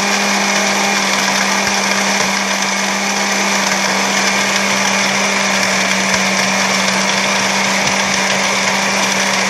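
Oster countertop blender running steadily at one speed while blending achiote paste with lime juice and water: a constant motor hum under the rushing churn of the liquid in the jar.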